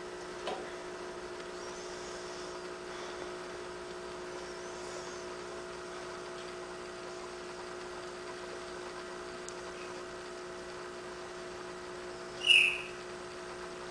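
Steady electric hum of an aquarium filter pump. Near the end comes a single short, loud, high-pitched chirp.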